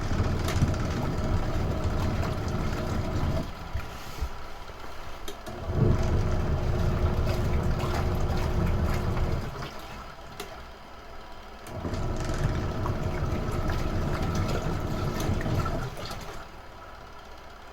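Retro-style washing machine in its wash cycle: the motor drives the pulsator in spells of about three to four seconds, three times, with a quieter lull of about two seconds between spells as the water churns.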